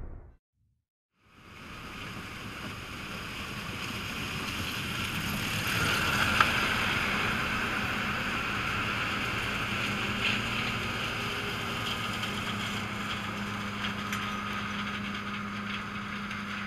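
Harvest machinery running steadily, a low hum under a rushing wind-like hiss on the camera microphone. It fades in after about a second of silence at the start.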